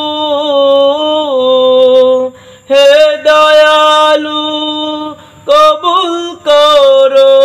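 A man singing a Bengali Islamic devotional song, holding long drawn-out notes that slide between pitches, with three short breaks for breath.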